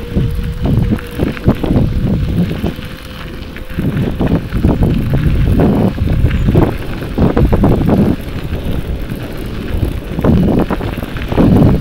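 Wind buffeting the microphone in uneven gusts, a heavy low rumble, with a faint steady whine in the first three seconds.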